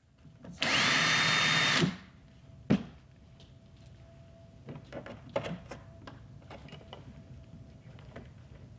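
Power drill running in one short burst of just over a second, then a sharp click and a few light knocks and taps of tool handling.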